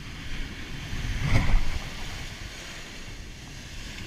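Heavy surf breaking and washing up the shore, with wind buffeting the microphone. A louder surge of surf comes about a second and a half in.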